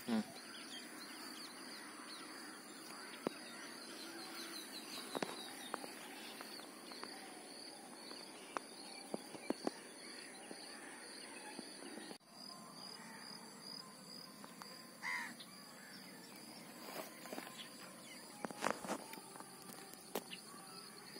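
Faint outdoor ambience with birds calling. A high chirp repeats about twice a second, with scattered faint clicks and taps.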